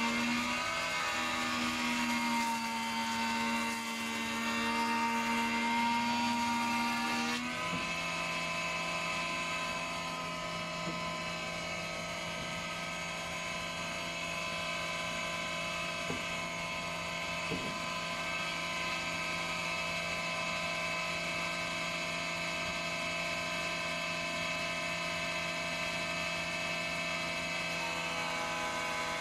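Surface planer (jointer) running. For about the first seven seconds its cutterblock is planing a Sapele board, then the noise of the cut stops sharply and the machine runs on free with a steady hum.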